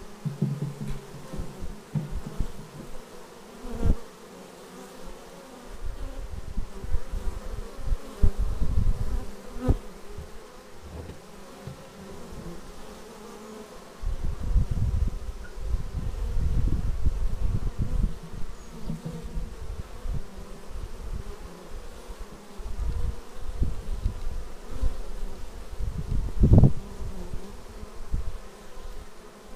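Steady buzzing of a crowd of honeybees at the hive entrance as foragers fly in and land. Single bees pass loudly close by now and then, and a low, uneven rumble comes and goes beneath the buzz.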